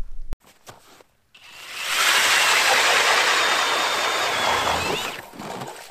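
Ice auger boring a hole through lake ice: a steady grinding and shaving noise that builds up about a second and a half in, holds for about three seconds with a faint high whine under it, then dies away near the end.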